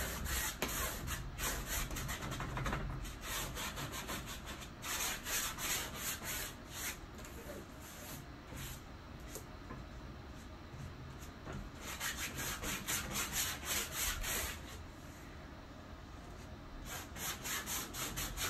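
A hand painting tool scraping across a stretched canvas in quick repeated strokes, with two brief lulls. It is being pressed hard to lift off and spread copper spray paint over the acrylic layer.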